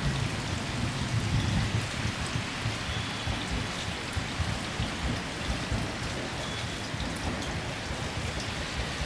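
521 series electric train rolling away from the platform, its low rumble fading under a steady hiss of rail and air noise.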